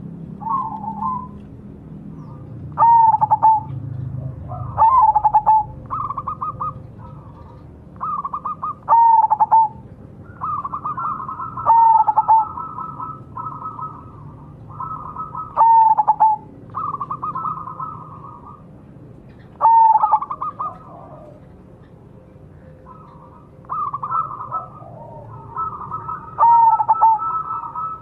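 Zebra dove (perkutut) cooing its song over and over, a phrase every few seconds. Each phrase is a quick rising note that drops into a strong low coo, mixed with runs of fast trilled notes.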